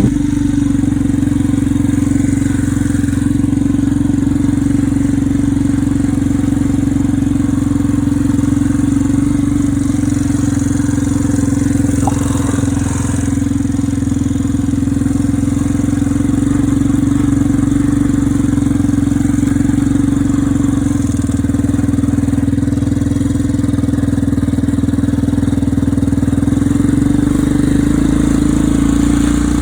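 ATV engine running at a steady, nearly constant pitch as the machine is ridden, with a slight shift in tone near the end.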